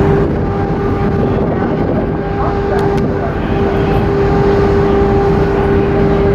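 A large car ferry's engines running in a steady, loud drone with a constant hum.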